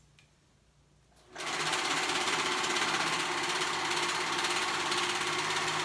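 Serger (overlock machine) running at a steady speed, stitching a sleeve seam. It starts about a second and a half in, after a short quiet pause.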